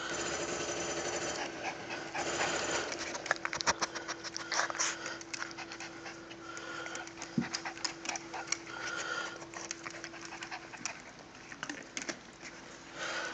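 Small puppy panting during rough play, with many short sharp clicks and scuffs through the middle as it wriggles and is rubbed on a wooden floor.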